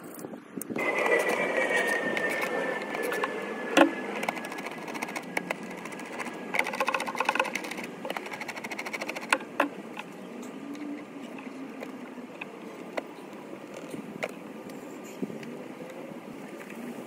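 Hands working at a car's engine-bay air intake make scattered clicks and knocks of plastic and metal parts, with a quick run of ticks about seven seconds in. About a second in, a stretch of hiss with a thin, slowly falling whistle is heard for a couple of seconds.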